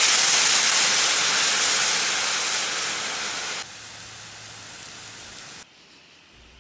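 Mountain Dew poured into a hot cast-iron skillet, sizzling and hissing loudly as it flash-boils into steam, slowly fading. About three and a half seconds in it drops suddenly to a quieter bubbling hiss, which stops near the end.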